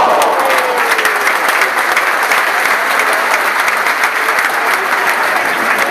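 Football crowd applauding, a steady dense clapping.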